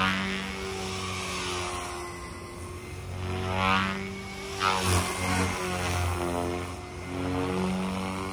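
Align TB40 electric RC helicopter in flight, its rotor whirring at a 2750 rpm headspeed and its motor whining, the pitch rising and falling as it manoeuvres. It gives loud whooshes from the blades a little under four seconds in and again about five seconds in.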